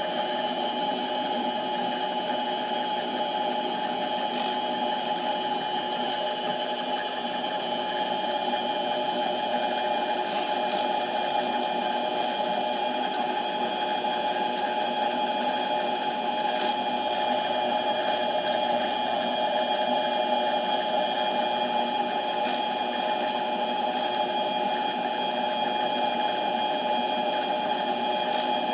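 Harbor Freight mini lathe running steadily with a whine from its motor and gears while it turns a Briggs & Stratton camshaft, with a few light ticks scattered through.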